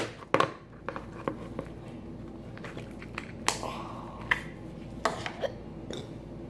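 Scattered small clicks and soft squishes of hands handling slime in its container.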